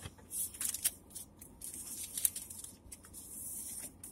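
Clear plastic sleeve and packaging rustling and crinkling as it is handled, in quick irregular crackles.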